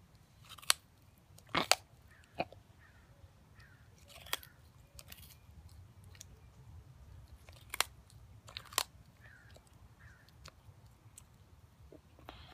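Sulcata tortoise biting into and chewing raw baby carrots: a string of sharp, irregular crunches and snaps, clustered in a few bursts with quieter chewing between.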